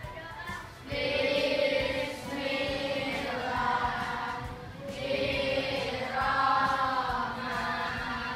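A class of children singing together in unison, starting about a second in, in phrases of long held notes.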